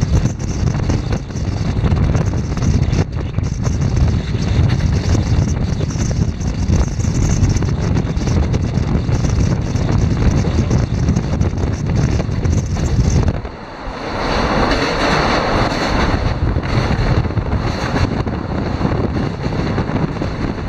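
Wind buffeting the microphone over the running noise of a moving passenger train, heard from an open coach door. About 13 seconds in the sound dips briefly and turns into a higher, hissier rush as the train crosses a steel truss girder bridge.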